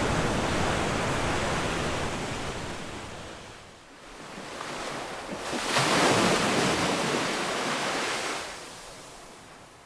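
Ocean surf in slow surges. One wave's wash fades away over the first few seconds, then a second wave builds, breaks loudest about six seconds in and ebbs away toward the end.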